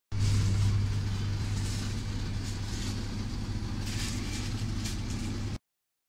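A steady low hum over a hiss, with a few faint higher crackles, cutting in and out abruptly.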